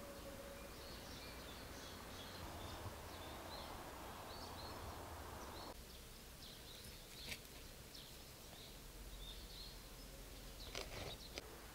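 Faint outdoor ambience with small birds chirping many times over. A soft hiss stops abruptly about six seconds in, and a few faint clicks come near the end.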